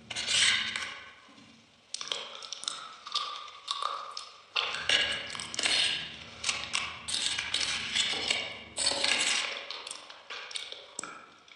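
Close-up eating sounds: biting into and chewing a cream-topped dessert, with a quick run of short clicks and crackles, quieter for a moment about a second in.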